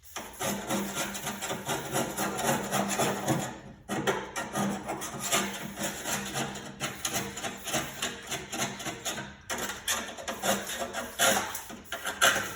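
Hand scraper rasping rust off a lawn tractor's mower deck in quick, uneven strokes, pausing briefly twice.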